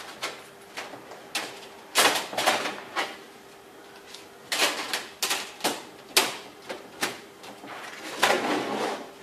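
Thin embossed sheet-metal reflector sheets of an Adjust-A-Wings Enforcer grow-light reflector being picked up, flexed and laid together. They give off sharp clicks and rattling wobbles. The loudest clatters come about two seconds in, around five seconds in, and near the end.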